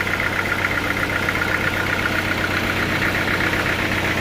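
Sawmill machinery engine running at a steady idle, with a fast, even chatter over a constant hum.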